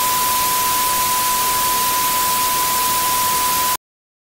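TV static sound effect: an even white-noise hiss with a steady single-pitch beep held through it, both cutting off suddenly near the end into dead silence.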